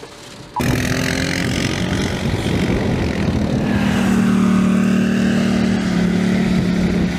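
Outdoor noise that cuts in suddenly about half a second in, with a motor vehicle's engine running as a steady low hum that grows stronger about three and a half seconds in.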